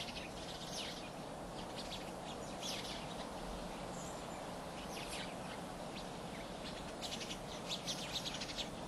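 Faint outdoor ambience: a low steady hiss with scattered short, high bird chirps, a little busier near the end.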